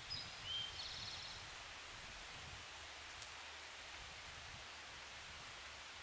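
Steady hiss of a trickling stream, with a small songbird calling about a second in: two short high whistled notes and then a quick rapid trill.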